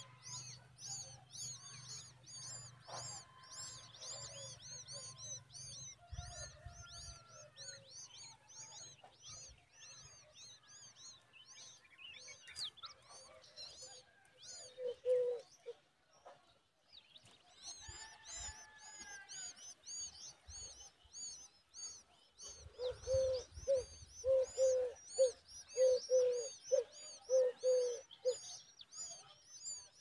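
Common babbler nestlings begging at the nest: rapid, high-pitched chirps repeated several times a second, breaking off briefly about halfway through, then starting again. Another bird calls over them in a series of short, lower notes about two a second, loudest in the second half.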